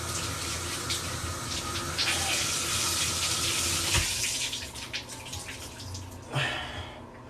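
Water running from a faucet while a rag is rinsed under it. It stops about four and a half seconds in, with a knock just before.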